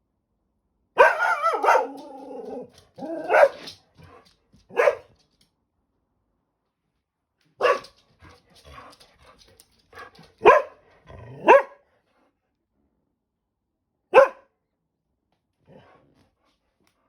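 Labradoodle barking in separate loud barks a second or more apart, about eight in all, the first a longer run lasting over a second and the last one faint. These are guard barks, warning off neighbours who come close to his home.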